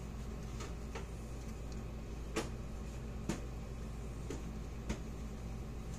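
Light clicks and taps, about half a dozen over a few seconds, from small hand tools and a circuit board being handled during soldering. They sit over a steady low hum.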